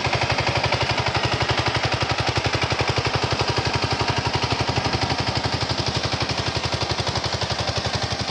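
Power tiller engine running steadily, its exhaust a rapid, even train of low thuds at about nine beats a second.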